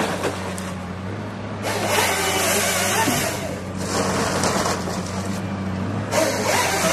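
Komatsu PC300LC-8 excavator-based harvester at work: its diesel engine runs steadily under load while the Pro700 harvester head feeds and delimbs a pine log. The head's work comes as two stretches of hissing, rasping noise, the first about two seconds in and the second near the end.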